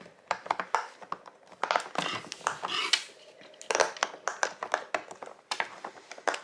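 Silicone pop-it fidget toys (small pumpkin shapes) being popped by fingers: quick runs of soft pops and clicks in several bursts, with short pauses between them.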